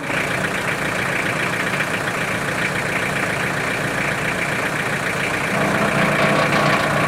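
Tractor engine idling steadily, its low hum growing a little stronger about five and a half seconds in.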